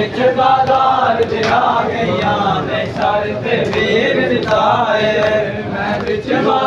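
A crowd of men chanting a nauha (Shia mourning lament) together, with the slaps of chest-beating (matam) striking a recurring beat through it.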